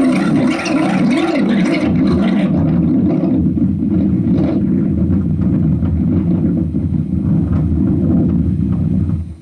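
Jet aircraft roar. The high hiss dies away about two seconds in, leaving a steady low rumble that cuts off suddenly near the end.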